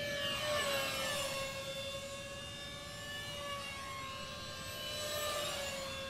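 High-pitched whine of 64mm electric ducted fans in radio-controlled F-18 model jets flying in formation. It swells twice as the jets pass close, once near the start and again near the end, and the pitch drops a little with each pass.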